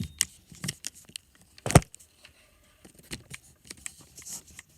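Scattered clicks and light knocks of things being handled and moved about, with one sharp, loud knock a little under two seconds in.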